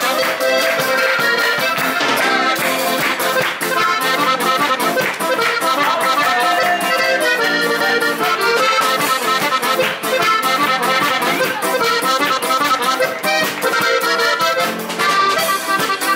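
Button accordion playing a lively traditional folk dance tune with a steady beat.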